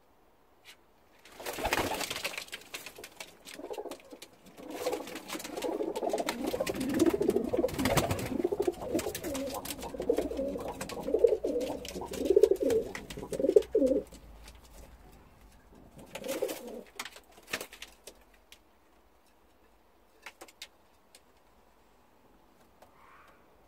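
Domestic pigeons cooing, a run of low repeated coos lasting about twelve seconds and then a shorter bout a little later, with scattered sharp clicks among them.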